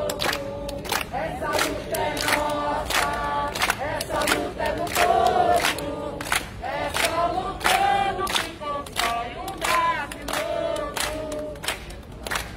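A crowd of protesters singing a chant together in unison, with steady handclapping about twice a second.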